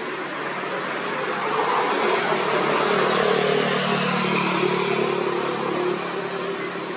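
A motor engine hums steadily, growing louder through the middle and easing off near the end, over a steady thin high-pitched whine.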